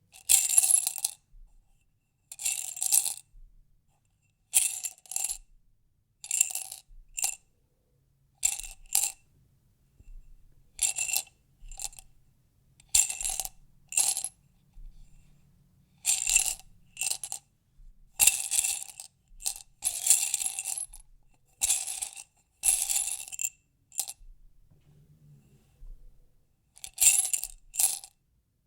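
Small hard objects rattling and clinking inside a glass jar in repeated short bursts, one every second or two with brief pauses between, the glass ringing in the same few tones each time.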